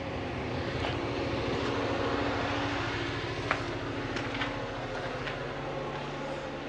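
Steady distant engine noise with a low hum that fades about halfway through, and a few faint taps.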